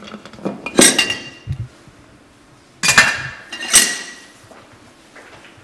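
Glassware and dishes clinking and clattering in two bursts, about a second in and again about three seconds in, each strike leaving a brief ringing tone.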